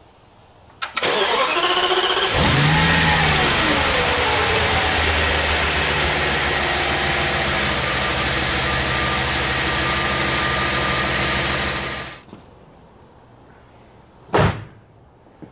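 Audi S8's 5.2-litre V10 cranked by the starter. It catches about two seconds in with a brief rev that settles into a steady idle, on a test start after its throttle-body wiring was replaced, and is switched off about twelve seconds in. Near the end the bonnet slams shut once.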